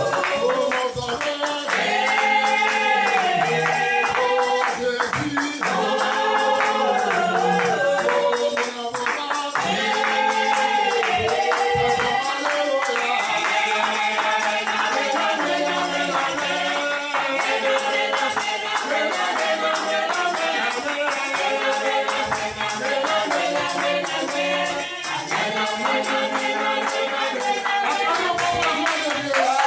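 Worship song: a sung melody repeating its phrase over music with a steady beat of shaken percussion like a tambourine or rattle.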